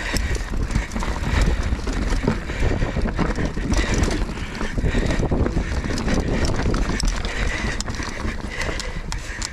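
Mountain bike riding down a rough dirt trail: a constant crunch and rattle of tyres and bike over bumps and roots, with many sharp knocks, and wind rumbling on the microphone.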